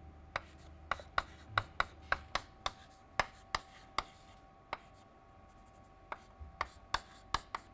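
Chalk writing on a chalkboard: an irregular run of sharp taps and short scrapes as symbols are written, with a brief lull about four to six seconds in.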